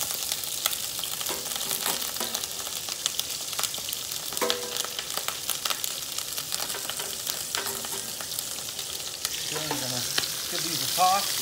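Green beans sizzling in hot butter and olive oil in a non-stick frying pan, with scattered clicks as the beans are dropped in and moved about. Near the end the pan is tossed over the gas flame.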